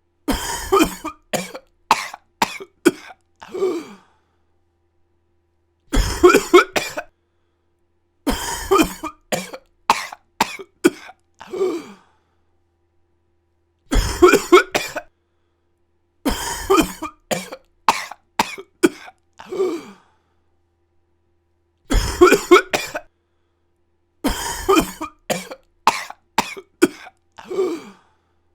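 A person coughing in bouts of several quick coughs, each bout followed by a few seconds of dead silence. The bouts recur every four to eight seconds.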